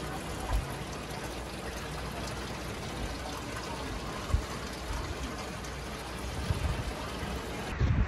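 Steady rushing, trickling water noise, with a couple of soft low thumps.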